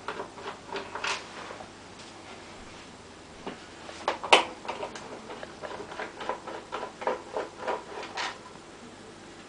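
T10 screwdriver working the screws out of the plastic rear casing of a Bang & Olufsen Century music system: a string of small clicks and ticks, with a sharper click about four seconds in.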